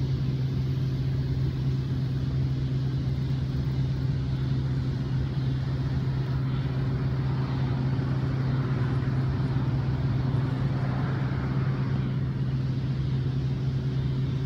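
A machine running with a steady low hum, its pitch and loudness unchanging throughout.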